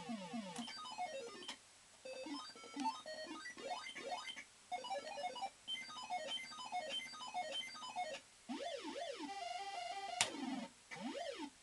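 Barcrest Super Line Up fruit machine playing its electronic sound effects: runs of short bleeps and quick falling and rising tone sweeps, broken by brief pauses. A sharp click comes about ten seconds in.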